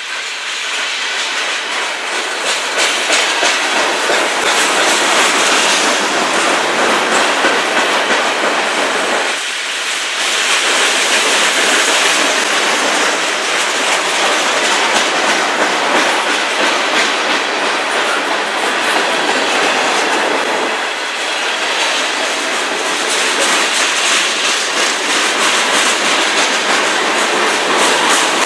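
Freight train cars (covered hoppers and tank cars) rolling past close by: a loud, steady rush of steel wheels on rail with a fast clicking of wheels over the track, easing briefly twice.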